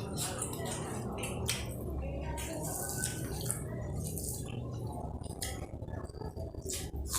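Irregular clinks and clatter of kitchen utensils and dishes during food preparation, over a steady low hum.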